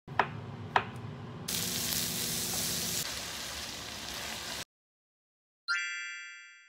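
Udon noodles with bacon and vegetables sizzling in a frying pan as they are turned with metal tongs, with two sharp clicks in the first second. The sizzle grows louder about a second and a half in and cuts off suddenly. Near the end a single bright chime rings and fades away.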